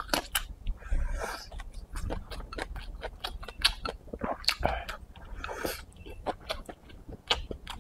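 Close-miked chewing of pickled-pepper chicken giblets and rice, with many sharp crunches and wet mouth clicks.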